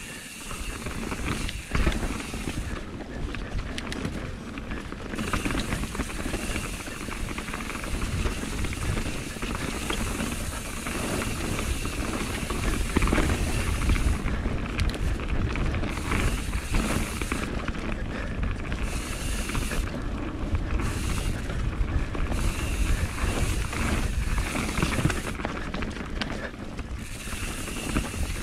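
Mountain bike running fast down a dirt forest trail, heard from the rider's camera: a steady rush of wind on the microphone and tyre noise, with the bike clattering over roots and bumps.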